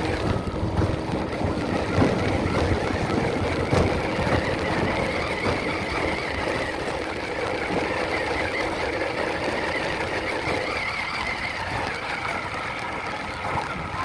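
Radio-controlled truck's motor running with a whine that wavers slightly in pitch, over a steady rushing noise, easing off near the end.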